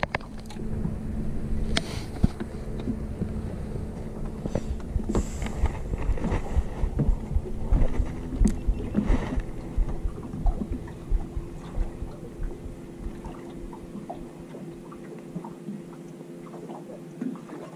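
Wind buffeting the microphone and water slapping a small aluminium boat's hull, over a steady engine hum that steps up in pitch about halfway through. The low rumble drops away near the end.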